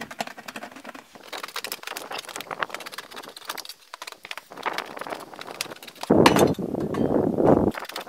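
Hand aviation snips cutting a circle out of 26-gauge corrugated steel roofing: a run of crackling, clicking cuts as the blades bite through the thin sheet metal. Near the end comes a louder, noisier stretch lasting about a second and a half.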